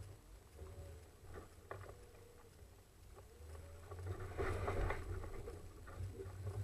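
Off-road vehicle working slowly over a rough trail: a low rumble with scattered knocks and short squeaks, growing louder about four seconds in.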